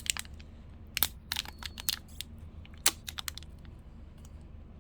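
Blind-box pin packaging being handled and torn open by hand: a scatter of sharp crinkles and clicks that thin out after about three and a half seconds.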